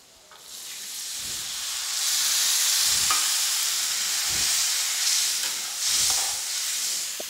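Water hitting hot mustard oil with fried onions and spice powders in a kadhai, sizzling and hissing hard as the masala starts to cook in the water, with a slotted metal spoon stirring and knocking against the pan. The hiss starts about half a second in and builds to full strength over the next second or so.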